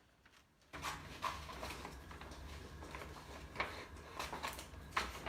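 Scissors cutting small slips of paper: several sharp snips and paper rustling, over a low steady hum.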